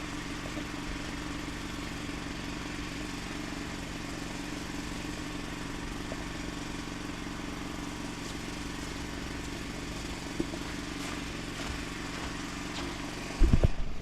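A small engine running steadily at a constant speed. Near the end, a loud burst of knocks.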